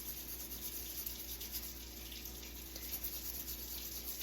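Kitchen tap running steadily as the juicer's mesh screen is rinsed under the stream.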